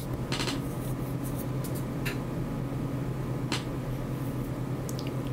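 Room tone: a steady low hum, with a few faint short hisses about a second and a half apart.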